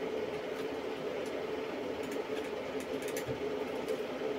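Steady background hum of a running machine, with a few faint light clicks of wire ends and lugs being handled at the battery cell terminals.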